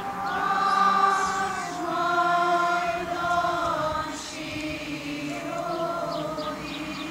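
A choir singing a slow song in long held notes, each sustained for about a second before moving to the next.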